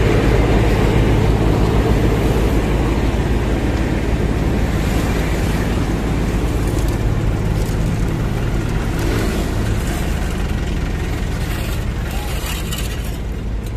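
Heavy diesel engine running steadily close by, over general road traffic noise; it slowly gets quieter toward the end.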